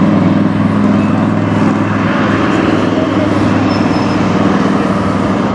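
Road traffic passing close by: a city bus and a car going past, with a low engine hum that is strongest at first and eases about two seconds in, over a steady rush of traffic noise.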